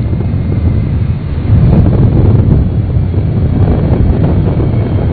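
Low, steady rumble of a Boeing 747's four jet engines as the Shuttle Carrier Aircraft rolls out just after touchdown, with wind buffeting the microphone. It gets a little louder about a second and a half in.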